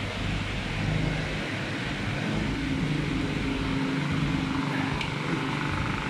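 A motor vehicle engine running steadily, its pitch shifting a few times, with a faint click about five seconds in.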